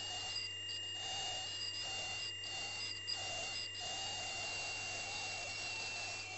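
Dental ultrasonic scaler (PerioScan) running: a steady high-pitched whine with a second, lower steady tone, over irregular gurgling of its water spray, as the tip works on a tooth root in water.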